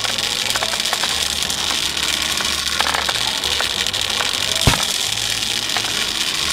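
Dense clattering and crackling of many small balls pouring and piling onto a toy truck's bed, over a low steady engine-like hum. One heavy thump about three-quarters of the way through.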